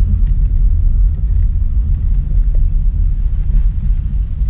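Steady low rumble of a car moving slowly, heard from inside the cabin: engine and road noise.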